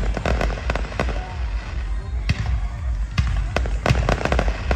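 Fireworks going off: many sharp bangs and crackles in quick, irregular succession over a constant low rumble.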